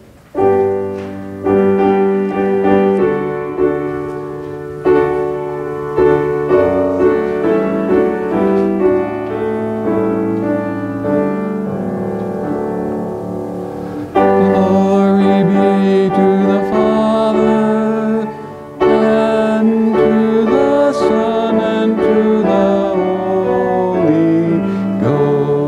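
Piano playing the introduction of a hymn, its notes fading between chords; about halfway through, singing joins in with the piano accompanying.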